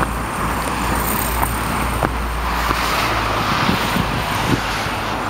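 Steady road traffic noise, a low rumble with a hiss of passing cars that swells and fades a couple of times.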